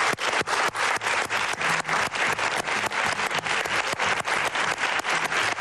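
Studio audience and contestants clapping their hands in quick, fairly even, rhythmic applause.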